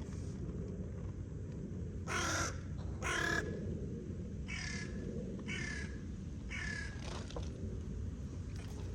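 Crow cawing five times, two louder caws followed by three fainter ones.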